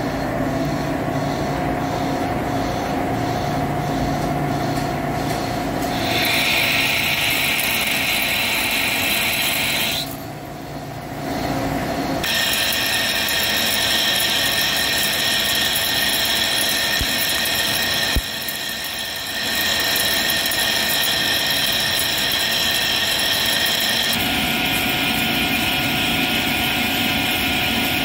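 Hankook PROTEC-9NC CNC lathe making a roughing cut on a stainless steel roll, the cutting insert working under flowing coolant: steady machining noise with several high steady tones. The sound shifts in character a few times and drops quieter twice, around ten seconds in and again after a short click around eighteen seconds in.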